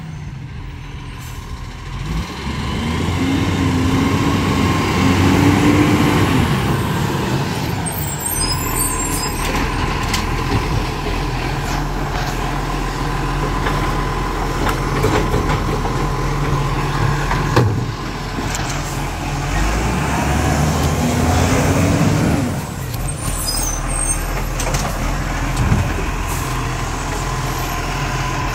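Side-loading garbage truck's diesel engine running, revving up and back down twice, once a couple of seconds in and again near the end, as its hydraulic arm lifts and tips wheelie bins. A short hiss comes twice.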